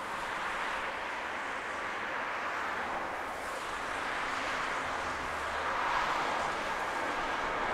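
Twin-engine jet airliner at takeoff thrust, its engines making a steady rushing noise that slowly grows louder as it lifts off and climbs toward the listener.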